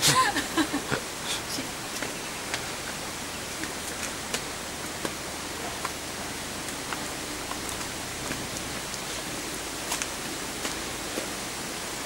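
Light footsteps climbing concrete stairs, roughly two a second, over a steady outdoor hiss.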